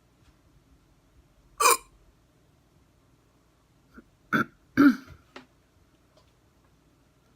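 A person's hard hiccups: three loud, abrupt ones, the first about a second and a half in and two more close together around the middle, with a couple of faint catches between.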